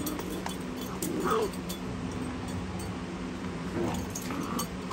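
Schnauzer puppies play-fighting, giving short yips and whines about a second in and again near the end, with light scuffling of paws on bedding.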